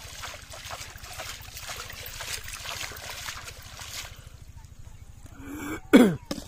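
Pond water splashed repeatedly by hand, a rapid run of small splashes and drips that stops about four seconds in. Near the end comes a brief loud cry that falls steeply in pitch, the loudest sound.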